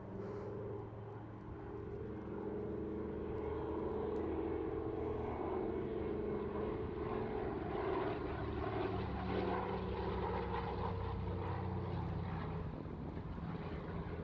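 Twin Pratt & Whitney R-1830 radial engines and propellers of a Douglas C-53D Skytrooper in flight, a steady droning drone. It grows louder over the first couple of seconds, then holds, with more propeller noise in the middle.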